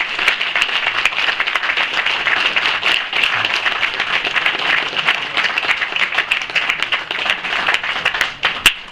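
Audience applauding steadily, thinning out to a few last separate claps near the end.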